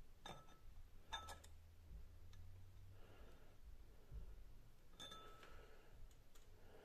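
Near silence with a few faint metallic clicks: a vernier caliper's jaws and slide ticking against the rim of a steel cylinder liner, once near the start, twice about a second in, and once more about five seconds in.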